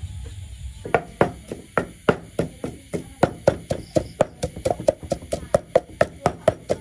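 Wooden pestle pounding in a large wooden mortar, a steady run of dull knocks at about four strokes a second starting about a second in, crushing ingredients for a paste.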